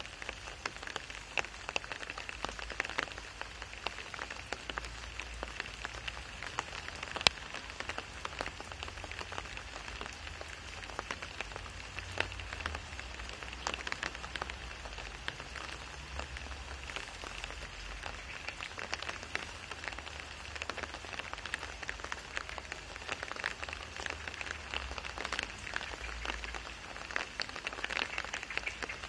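Steady rain falling on wet asphalt and a shallow puddle: a dense, even hiss made of countless single drop hits, with one louder drop hit about seven seconds in and a low rumble underneath.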